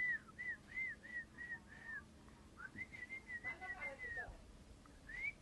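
Hill myna whistling a run of short, arched notes, about three a second, then after a pause a second run with a brief voice-like sound mixed in, and a rising whistle near the end.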